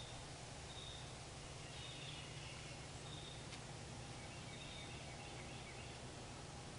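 Outdoor camp ambience: birds calling, with short high notes repeating about once a second and a few quicker chirping phrases, over a faint steady low hum.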